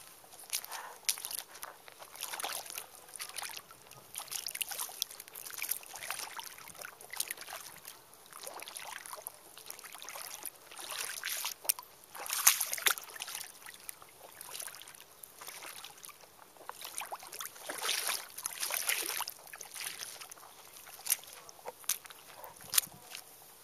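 Footsteps in cloth shoes squelching and splashing through wet mud and shallow muddy puddles at a walking pace.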